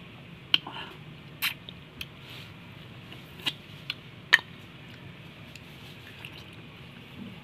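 Close-up wet mouth sounds of someone eating cooked pork leg by hand: sharp lip smacks and sticky chewing, about six sharp ones in the first four and a half seconds, then softer chewing.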